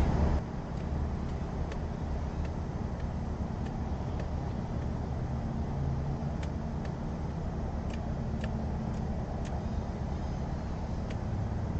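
Steady low rumbling background noise, with a few faint ticks.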